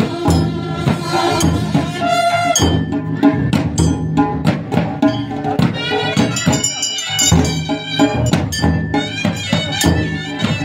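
Pahari folk drum ensemble, dhol-type drums beating a fast rhythm under a reedy wind instrument playing the melody.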